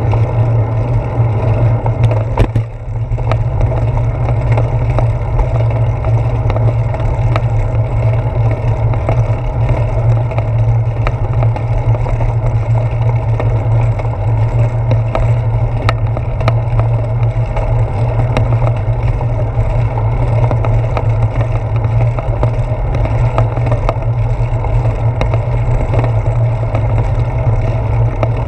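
Steady low rumble of wind and road vibration on a bicycle's handlebar-mounted GoPro Hero 4 while riding, with faint ticks and rattles. The rumble drops briefly a couple of seconds in.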